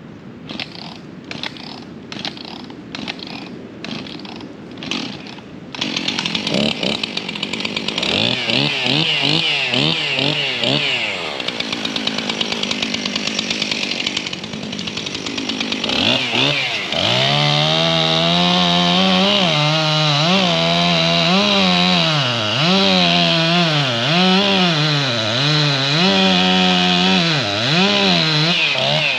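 Gas chainsaw: a string of short knocks, then about six seconds in the saw revs up and runs. From about seventeen seconds it is cutting wood, its engine pitch dipping and recovering again and again under load.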